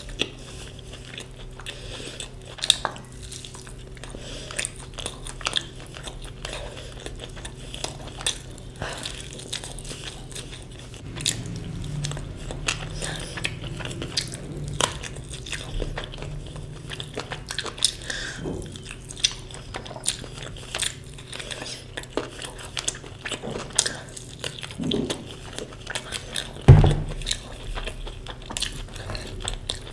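Close-miked eating sounds: a person chewing and biting food, with many small wet clicks and crunches over a steady low hum. A single heavy thump near the end is the loudest sound.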